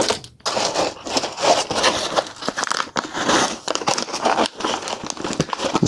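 White foam packing inserts being handled and pulled out of a cardboard box, a continuous run of crinkling, scraping rustles.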